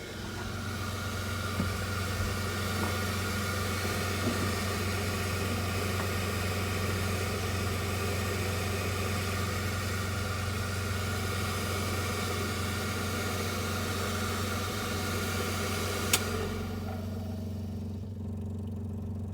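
Subaru R-2 SS's two-stroke air-cooled twin engine idling steadily. A single sharp click comes near the end, after which the background hiss falls away.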